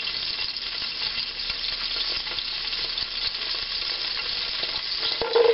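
Butter and canola oil sizzling steadily in a hot pot, with a few sharp clicks near the end.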